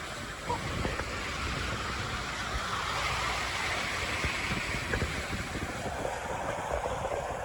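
Steady rush of water and wind, with a rumbling low end from wind buffeting the microphone.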